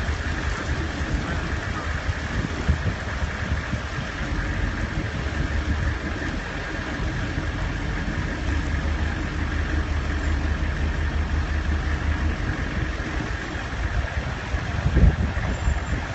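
A vehicle engine running steadily at low speed through floodwater, a constant low rumble with a steady high tone over it. One short thump near the end.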